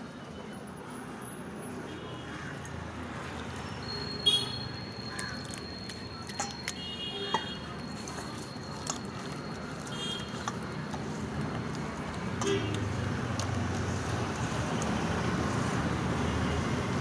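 Steady background rumble of road traffic, growing louder in the second half, with a few short high chirps or toots over it.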